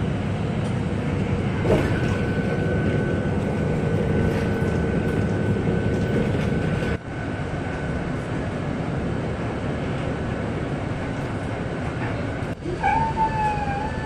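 Steady drone of a city bus's engine and road noise heard from inside the passenger cabin as it drives, with a faint steady whine over it for a few seconds. Near the end a sustained, slightly wavering tone with overtones starts up.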